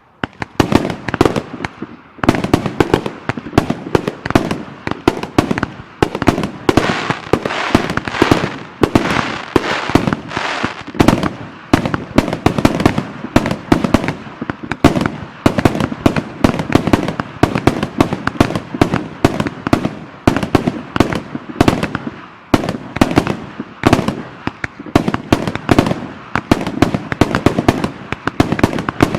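Display fireworks firing in a rapid, continuous barrage of sharp reports, several a second. The barrage starts suddenly and gets denser about two seconds in.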